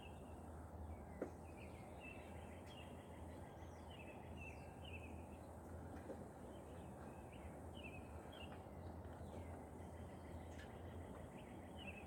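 A songbird chirping over and over in short quick notes above a faint, steady low hum.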